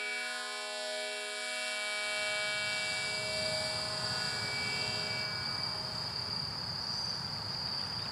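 A sustained, droning chord of background music fades out over the first half. A low rumbling ambient noise comes in suddenly about two seconds in, and a steady high-pitched insect trill sets in near the middle.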